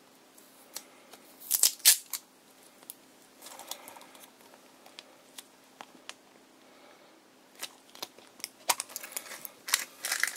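Plastic gashapon capsule being twisted and prised open by hand, with sharp plastic clicks and snaps. The loudest snaps come about two seconds in, and a quick run of clicks and rattling of the shell fills the last few seconds.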